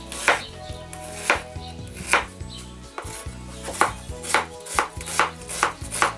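Kitchen knife chopping an onion on a wooden cutting board: about ten sharp knocks of the blade hitting the board, slow at first and quicker in the second half.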